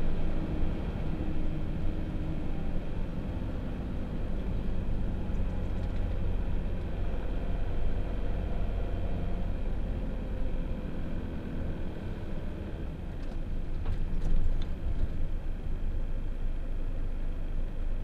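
Motorhome driving slowly, engine and tyre noise heard from inside the cab as a steady low hum. A couple of short clicks come about three-quarters of the way through.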